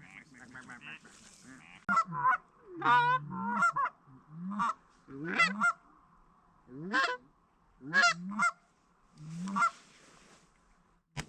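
Canada goose honks and clucks, about a dozen calls in short groups of one to three. A single sharp shotgun bang comes just at the end.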